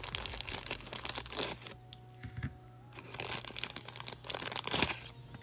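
Packaging being handled and unwrapped, crinkling and rustling in two spells with a short lull between, as parts of a model kit are taken out.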